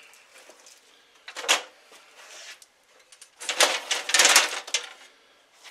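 Clunking and rattling of a Shopsmith scroll saw's metal frame being swung back upright on its stand: one short clatter about one and a half seconds in, then a longer, louder rattle from about three and a half to five seconds in.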